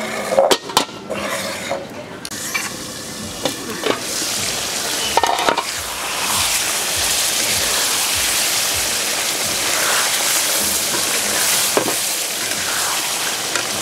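Cucumber curry sizzling in a pot as it is stirred with a metal spatula: a few sharp clinks of the spatula on the pot early on, then a steady loud sizzle that builds from about four seconds in, with occasional further clinks.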